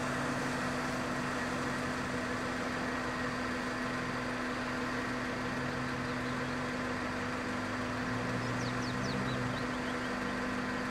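A 4x4's engine running at steady, unchanging revs.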